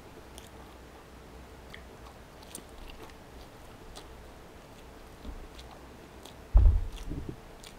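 Close-up mouth sounds of biting into and chewing a flaky ricotta-and-spinach pastry: soft scattered clicks and crackles. A low thump about six and a half seconds in, with a few smaller knocks after it, is the loudest sound.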